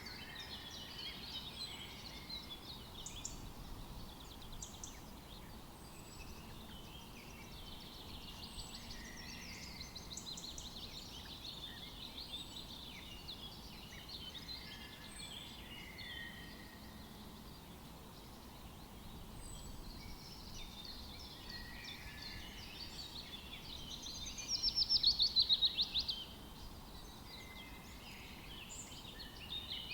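Several songbirds singing and calling together in a forest chorus, with thin high chirps repeating every couple of seconds over a soft background hiss. A louder, fast trill that falls in pitch stands out for about two seconds, some 24 seconds in.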